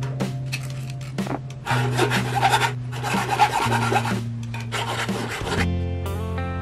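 A flat hand file rasping across a small metal bracket part in a few bunches of strokes, between about two and five seconds in.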